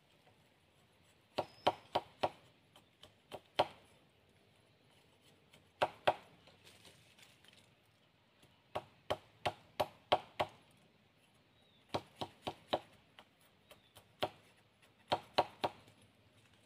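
Machete blade chopping into a wooden stick, sharp wooden knocks in short clusters of two to six strokes with pauses between, as the stick is cut and shaped.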